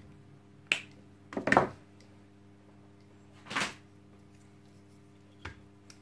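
Side-cutting pliers snipping through a vacuum cleaner's power cord: a few short sharp snaps and clicks, the loudest a crunch about a second and a half in.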